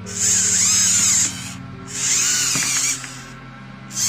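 Hobby servo motors whining in bursts of about a second, roughly every two seconds, as they pull the tendons that flex the fingers of a 3D-printed robot hand.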